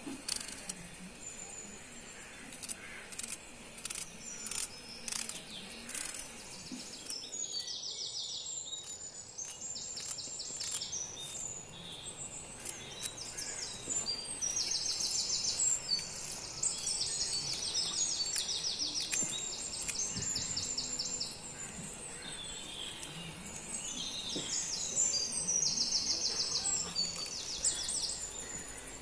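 Crisp clicks of a small knife slicing through a red onion held in the hand, coming quickly for the first several seconds. From about seven seconds in, a bird sings fast, high trills in repeated bursts, louder than the cutting.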